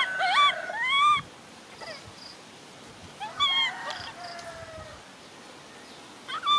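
Baby macaque crying: a quick run of high, arching cries in the first second, another cry about three seconds in, and a short one near the end.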